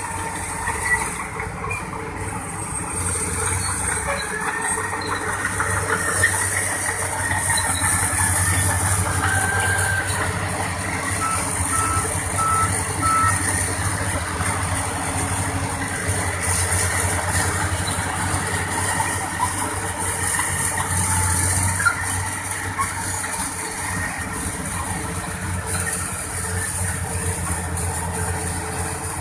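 Volvo EC480DL excavator's heavy diesel engine running steadily while loading. About eleven seconds in, a reversing alarm gives four quick beeps.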